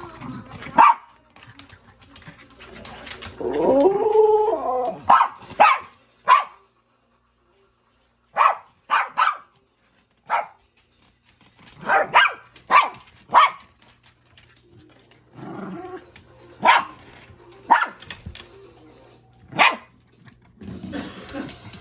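Small white poodle barking in short, sharp yaps, mostly in quick clusters of two or three with pauses between. There is one longer wavering cry about four seconds in.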